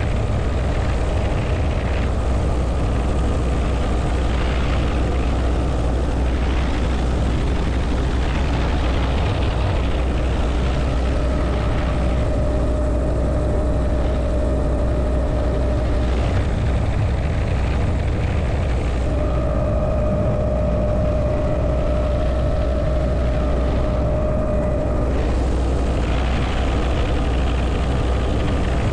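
Helicopter in flight with its doors off: the steady low drone of the rotor and engine mixed with wind rushing through the open cabin, and a higher whine that fades in and out several times.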